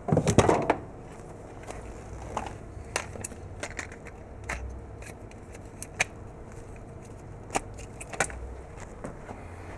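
A coil of heavy black power cable lands on a hard floor with a brief clattering thud. Scattered sharp knocks and clicks follow as the cable and its plug are uncoiled and laid out.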